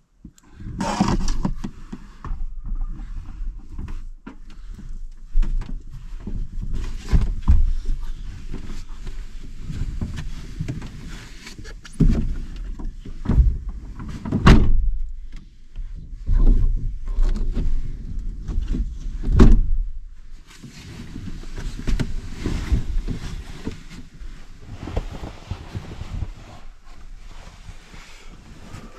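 A person climbing into a pickup bed under a camper shell and moving about on the bed platform: a series of knocks and thumps against the bed and shell, two of them sharper and louder about halfway and two-thirds of the way through, with rustling of bedding and clothing as a sweatshirt is pulled off near the end.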